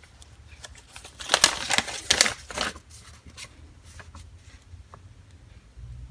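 Paper rustling and crinkling as a folded note is handled and opened, in a cluster of short bursts from about one to three seconds in, over a low steady hum.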